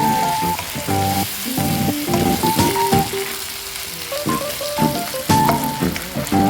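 Food sizzling as it fries in a pan, with background music playing over it.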